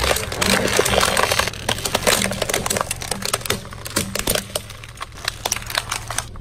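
Plastic spoons and a plastic bottle cracking and snapping under a slowly rolling car tyre. A dense run of sharp cracks thins out over the last few seconds, over a steady low hum.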